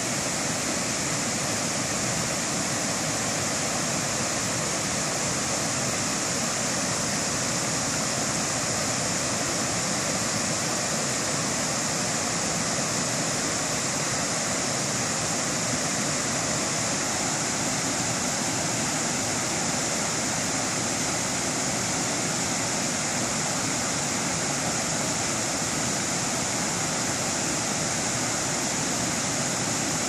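A creek running high, rushing steadily over flat rock ledges and small drops: a constant, even wash of whitewater.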